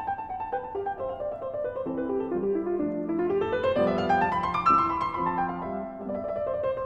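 Solo piano music: a gentle flowing melody, with a run of notes that climbs in the middle and falls back.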